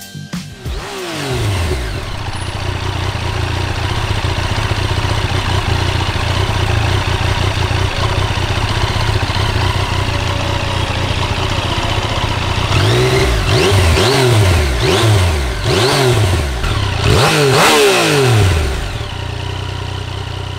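Yamaha MT-09's 847 cc inline three-cylinder engine through its stock exhaust: it fires up about a second in, its revs falling to a steady idle. About two-thirds of the way through come five or six quick throttle blips, each rising and falling in pitch, before it drops back to idle.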